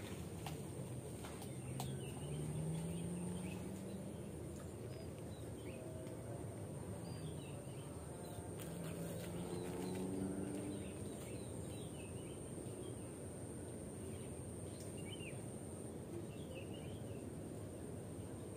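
Outdoor ambience with scattered short bird chirps over a low steady rumble that swells twice. A thin, high, continuous tone runs throughout.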